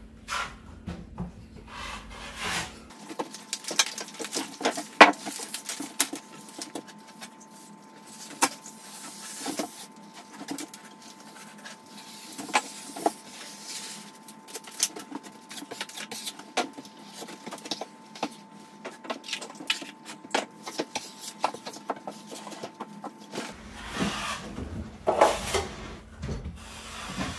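Steel drywall taping knife scraping joint compound off a metal mud pan and pressing and smoothing it over paper tape on drywall: an irregular run of scrapes and light clicks.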